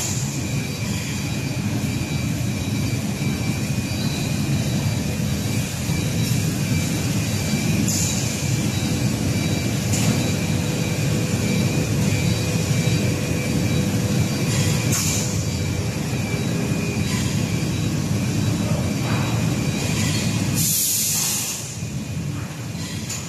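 Insulating glass production line running: a steady low mechanical rumble with faint steady hum tones. Short hisses come through it a few times, the loudest lasting about a second near the end, after which the rumble drops off.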